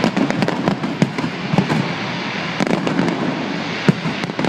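Fireworks display: a rapid, irregular string of sharp bangs and crackles, in clusters every second or so, over a continuous dense noise of further bursts.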